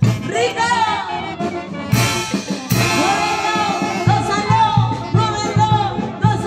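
Brass band (banda sinfónica) playing a Latin dance song with a singer's voice over the brass and a steady bass beat about twice a second. There is a brief crash about two seconds in.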